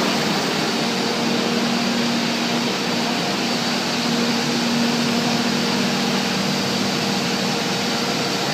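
Steady machinery running in a workshop: an even whirring hiss with a low hum underneath, no starts or stops.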